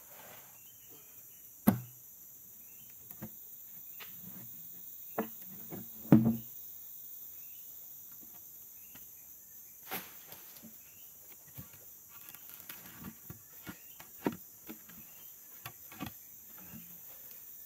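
Scattered knocks and scrapes of a wooden plank on a sawn ulin (Borneo ironwood) log as sawdust is pushed off it, with a sharp knock near two seconds in and a heavier double thump about six seconds in. Steady buzzing of forest insects runs underneath.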